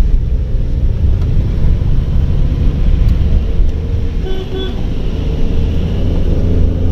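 Steady low rumble of a car's engine and tyres on a wet road, heard from inside the cabin. A vehicle horn gives two short toots about four seconds in.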